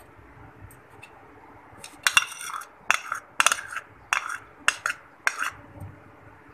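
A metal spoon clinking and scraping against a ceramic bowl of spices and ginger-garlic paste: a quiet start, then a series of sharp clinks from about two seconds in.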